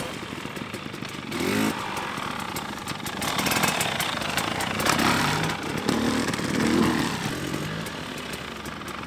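Enduro dirt bike engine running at low speed, revving up in short rising bursts of throttle several times through a slow turn.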